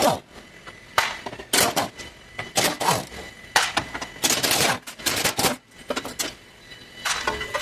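A cover over the fuel filter being unclipped and handled, giving a series of sharp, irregular clicks and clatters.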